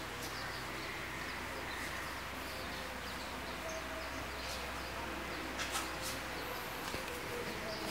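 Quiet room tone: a steady low hum and hiss, with faint, scattered bird chirps.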